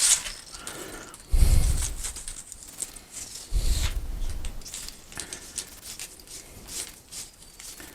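Edge-banding tape being handled and worked on a panel: rustling, scraping and small clicks, with two louder bursts of handling noise about a second and a half in and again about three and a half seconds in.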